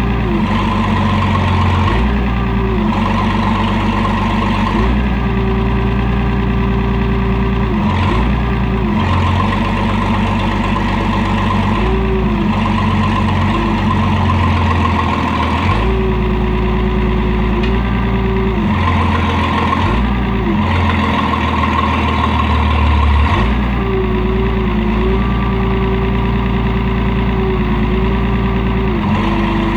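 IH 3616 backhoe's engine running while the hydraulics are worked. The engine note and a higher whine shift every second or few as the load comes on and off.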